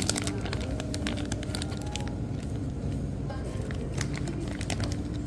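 Thin plastic food wrapper crinkling and crackling as a packaged chicken leg is worked out of its bag. The crackles are densest in the first second and come again around four seconds in.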